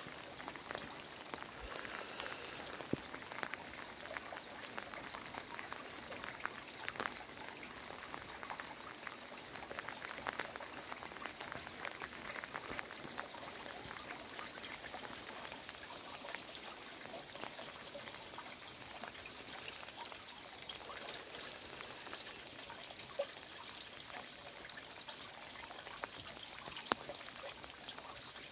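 Heavy rain falling steadily, a constant hiss scattered with sharp taps of single drops hitting close by.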